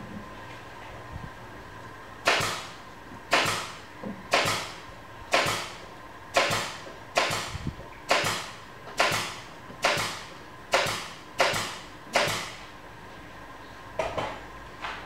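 Paintbrush strokes on watercolour paper: a run of about eleven quick swishes, roughly one a second, each starting sharply and fading within half a second.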